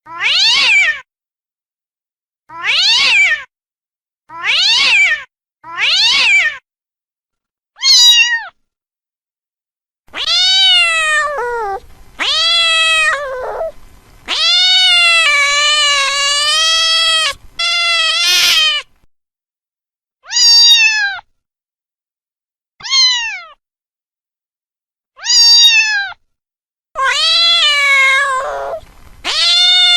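Domestic cat meowing repeatedly: four short, high meows spaced about a second and a half apart, then a run of longer, drawn-out meows with gaps between them.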